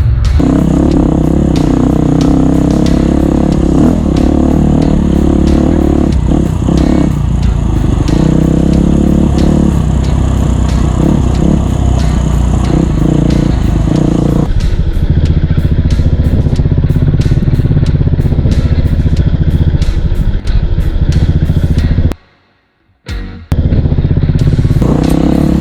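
Off-road motorcycle engines running on a trail, mixed with background music. The sound changes abruptly about halfway through and drops out briefly near the end.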